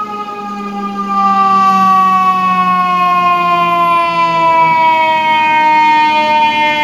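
Fire engine siren sounding one long, slowly falling wail that gets louder about a second in.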